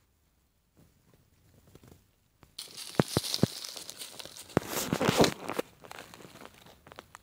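Dry fallen leaves crunching and rustling with several sharp cracks, starting suddenly a few seconds in and dying down about three-quarters of the way through.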